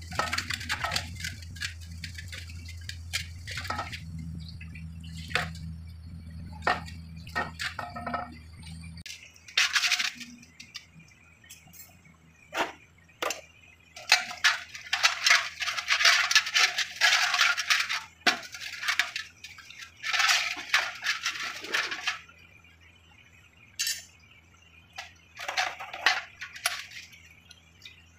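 Small steel parts clinking and rattling in clusters as needle rollers and gears are handled by hand on a tractor gearbox shaft. A steady low hum underneath stops about nine seconds in.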